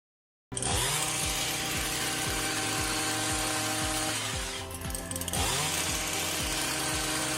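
A loud power tool running steadily over background music, easing off briefly about five seconds in and then running again.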